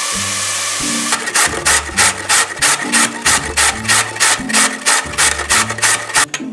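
A carrot being grated on a stainless steel box grater: quick, even rasping strokes about three a second, stopping shortly before the end. For about the first second, before the strokes begin, diced onions sizzle as they fry in olive oil.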